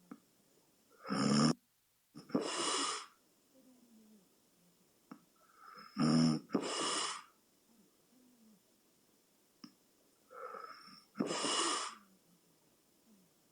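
A sleeping person snoring: three breaths about five seconds apart, each a short snore followed by a longer breathy sound.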